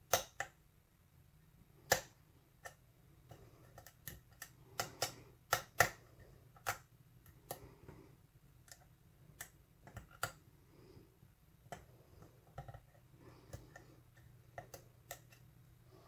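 Pin tumblers clicking as a hook pick single-pin-picks a five-pin Schlage lock cylinder under light tension: irregular sharp clicks, a few a second, several in quick succession around the middle. The picker takes the many clicks for serrated pins.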